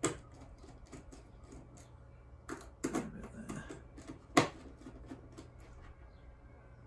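Small screwdriver turning the screws of a plastic barrier terminal block: a run of light clicks and ticks, with the loudest, sharpest click about four and a half seconds in, over a steady low hum.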